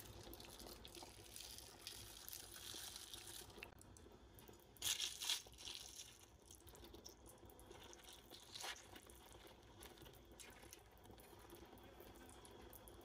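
Pot of pork-and-beef broth with pineapple and shallots starting to simmer, a faint fizzing and crackling of small bubbles at the surface. A short, louder splash-and-clatter about five seconds in as a steel ladle goes into the pot to skim it, and a lighter knock near nine seconds.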